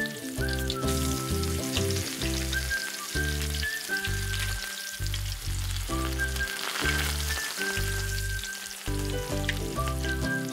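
Diced chicken frying in olive oil in a non-stick pan: a steady sizzle with fine crackles. Background music with a bass line and a melody plays over it.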